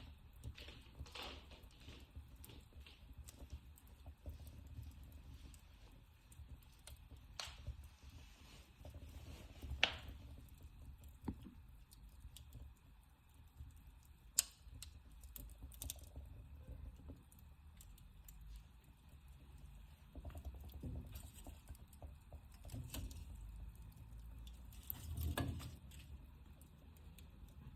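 Wood fire crackling in a fireplace: scattered sharp pops and snaps over a low, steady rumble. The loudest pops come about ten and fourteen seconds in.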